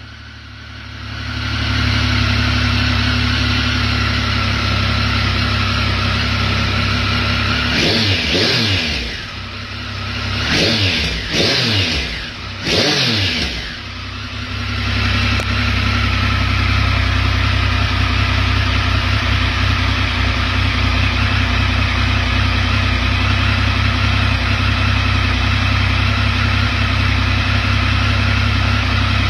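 Triumph Sprint RS's 955cc three-cylinder engine idling, blipped three times in quick succession about eight seconds in, each rev rising sharply and falling back, then settling to a steady idle again.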